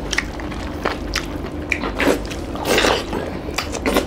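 Hands squishing and mixing rice with chicken curry on steel plates, with chewing and wet mouth sounds: many short sharp clicks and a longer squelching rustle a little under three seconds in.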